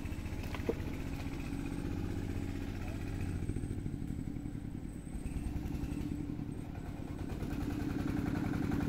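A small engine running steadily with an even low beat, growing a little louder near the end.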